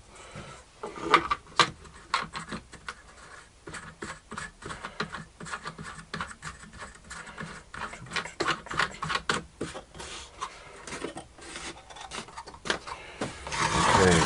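Hand-turned wooden knobs being screwed onto bolts through a plywood fence: a string of rubbing, scraping and small wooden clicks and taps. Near the end, a louder wood-on-wood scrape as the fence is moved and set down.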